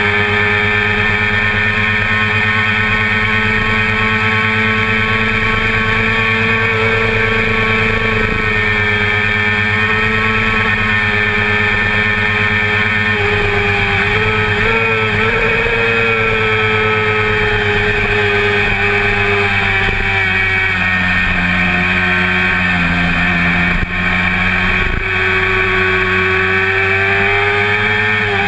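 1988 Honda CBR400RR's inline-four engine at high revs under race load, heard on board over wind rush. The engine note holds steady down the straight, sags lower for a few seconds past the middle with two brief dips about 24 seconds in, then rises again through the corner near the end.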